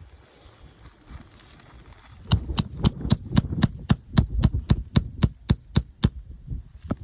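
Roofing hammer striking in a quick, even series of about fifteen sharp blows, roughly four a second, after a quieter start, with one last blow near the end.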